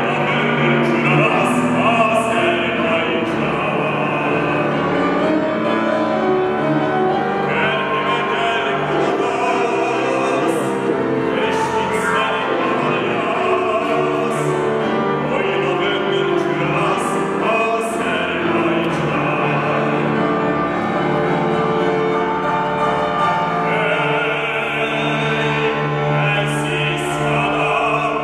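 A man sings in a full operatic style, accompanied by grand piano.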